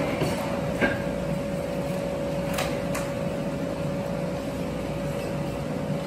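Steady machine hum with a constant mid-pitched whine under it, and a few faint clicks about a second in and again near the middle.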